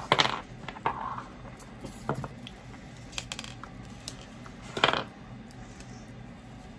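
Small objects being handled and set down on a desk: a few short rustles and knocks. The loudest come just after the start and about five seconds in.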